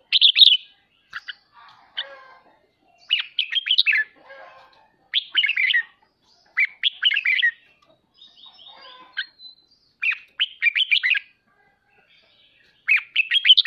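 Red-whiskered bulbul singing short, quick bursts of bright chattering notes, one burst every second or two. This is the provoking 'ché' song used to stir other caged bulbuls into singing.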